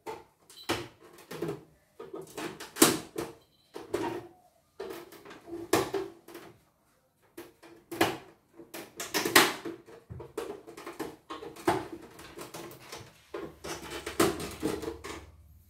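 A CNY portable embroidery machine being handled and worked on by hand: irregular clattering knocks and clicks with short bursts of mechanical whir. A low steady hum comes in near the end.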